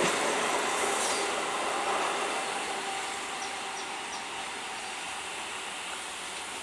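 EMU local train rolling away along the track, its running noise fading steadily. A few faint short chirps come in midway.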